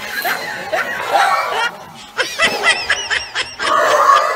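Laughter in quick, high snickers, loudest in a run of short laughs about two to three seconds in.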